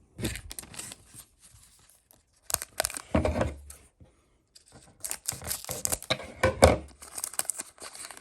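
Foil trading-card pack wrapper being torn open and crinkled by hand, in three bouts of rustling and tearing.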